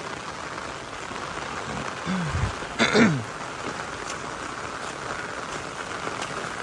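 Heavy rain pouring down steadily. About three seconds in, a brief vocal sound falls in pitch.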